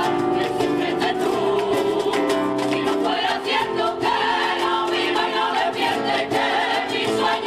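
A rociero choir of women singing an Andalusian devotional song in unison, accompanied by acoustic guitar and a djembe.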